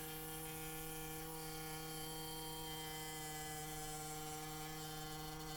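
Scroll saw running steadily while cutting wood: an even, unchanging hum.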